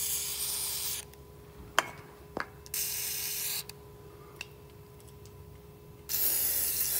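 Aerosol can of anti-seize spraying in three short hissing bursts onto the brake caliper's pad surfaces, with two light clicks between the first and second bursts.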